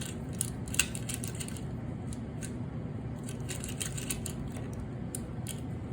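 Irregular light metallic clicks and clinks of hand tools and a driver bit working on the bolts of a condenser fan motor, over a steady low hum.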